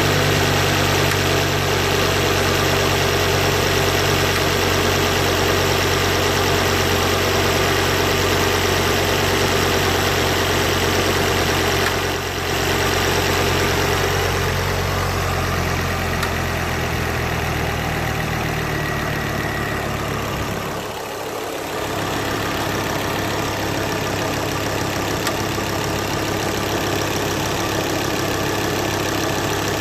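Ford Focus ST Mk2's turbocharged 2.5-litre five-cylinder engine idling steadily. Its low hum thins out about halfway through, and the level dips briefly a little later.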